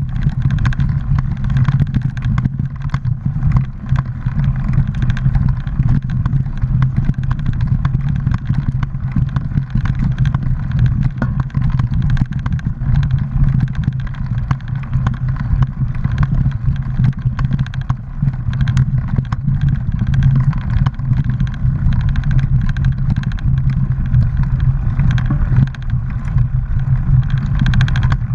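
Mountain bike ridden over a rough, leaf-covered dirt trail: a continuous low rumble of wind and tyres, with frequent rattles and clicks from the bike.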